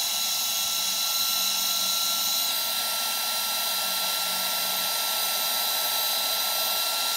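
Looftlighter X cordless charcoal lighter's fan blowing hot air, a steady rush of air with a constant high whine from the blower motor, as it lights lump charcoal.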